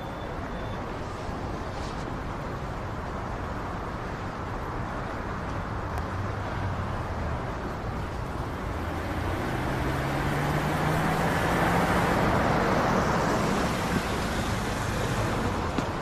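Road traffic ambience: a steady hiss of passing cars, with one vehicle drawing near and going by about ten seconds in, its engine hum rising in pitch as it passes.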